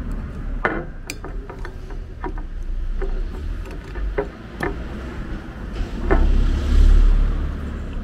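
Low, gusty rumble of wind on the microphone, swelling about six seconds in, with scattered sharp clicks and knocks.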